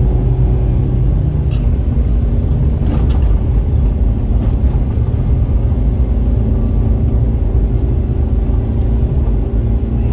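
Car engine and tyre noise heard from inside the cabin while driving: a steady low rumble, with a couple of faint clicks in the first few seconds.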